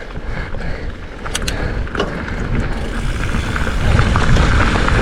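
Mountain bike riding along a dirt singletrack trail: a noisy rumble of wind and tyres on the camera microphone that grows louder about three seconds in as the bike picks up speed, with a few sharp clicks of the bike rattling about a second and a half in.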